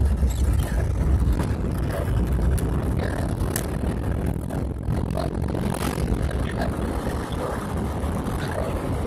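A car driving at road speed, heard from inside the cabin: a steady, low rumble of engine and tyre noise, with a few brief clicks.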